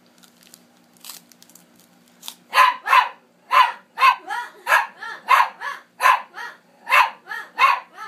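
A nine-month-old Italian greyhound barking repeatedly at a person, starting about two and a half seconds in: quick barks about every half second, a loud bark often followed by a softer one. The dog is talking back to its owner in a 'quarrel'.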